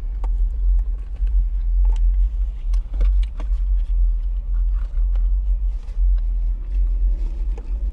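Steady low rumble of a car's engine idling, heard from inside the cabin, with scattered small clicks and crinkles of chewing and a sauce cup being handled.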